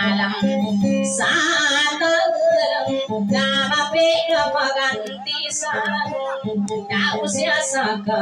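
A woman singing a Tausug dayunday song into a microphone, accompanying herself on a guitar.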